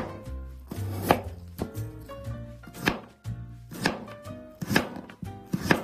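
Chef's knife cutting through Korean radish onto a cutting board: about seven sharp knife strokes, roughly one a second.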